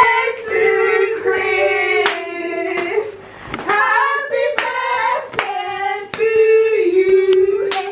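High-pitched voices singing a song in long held notes, with hands clapping along in a steady rhythm.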